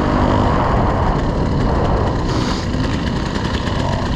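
Wind buffeting an action camera's microphone, with a dirt bike's engine running underneath.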